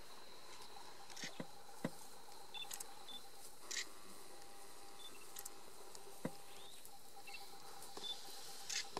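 Quiet dry-forest ambience with a faint steady high tone, a few brief high chirps and scattered sharp clicks.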